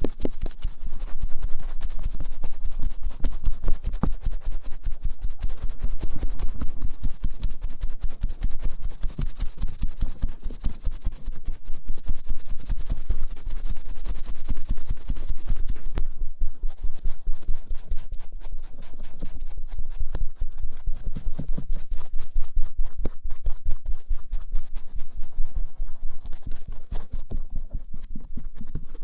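Cotton swabs rubbing and scratching over both outer ears in fast, continuous back-and-forth strokes.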